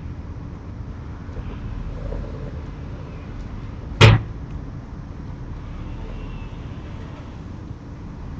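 One sharp, loud bang about four seconds in, over the steady low rumble of a car.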